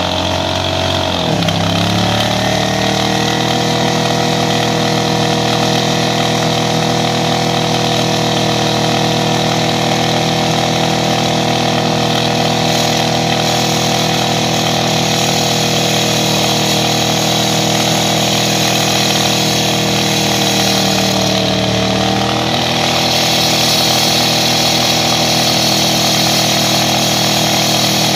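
Classic Chevrolet C10 pickup's engine held at high revs during a burnout, the rear tyre spinning on grass. The revs dip and climb back about a second in, hold steady, then sag briefly and pick up again a little after twenty seconds.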